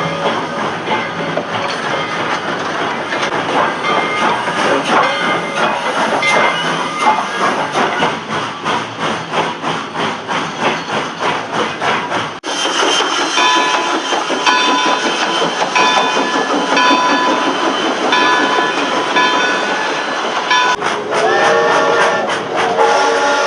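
Steam locomotive sound effects: running with a rhythmic exhaust chuff. About halfway through the sound cuts abruptly to a different running-train track, and a steam whistle starts blowing near the end.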